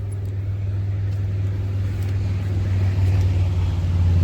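A motor vehicle's engine running with a steady low hum that grows louder.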